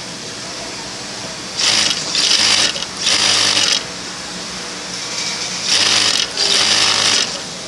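Industrial flatbed sewing machine stitching a folded hem through a hemming folder in four short runs, two about two seconds in and two near the end, with a steady hum between runs.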